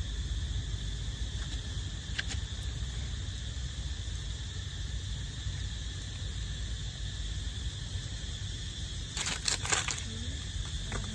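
Steady chorus of insects over a low rumble. About nine seconds in, a short burst of scuffling and clicks as a macaque rushes in.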